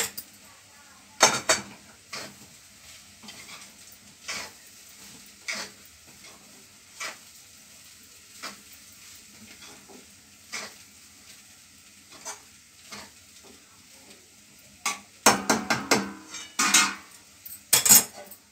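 Steel spatula scraping and knocking against a steel kadhai as poha is stirred, over a faint sizzle. The strokes come irregularly, about once a second, then quicker and louder near the end.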